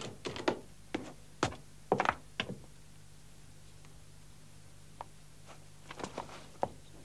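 Hard wooden knocks of clog footsteps on stone, about two a second for the first couple of seconds, then a few more steps about six seconds in.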